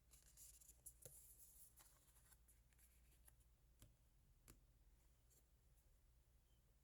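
Near silence with faint rustling and a few light ticks, busier in the first two seconds, from oracle cards being handled and turned over.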